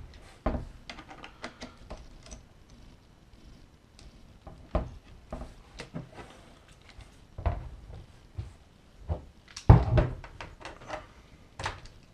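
Metal parts of a CNC router kit knocking and clicking as bolts, nuts, plates and aluminium extrusions are handled and fitted together. There are irregular clusters of sharp knocks and clicks, with the loudest knocks about ten seconds in.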